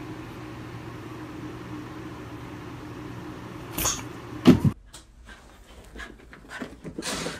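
An automatic blood-pressure monitor's small pump hums steadily for a little under four seconds, then stops with a short burst of hiss and is followed by a loud thump. After that, only faint scattered sounds.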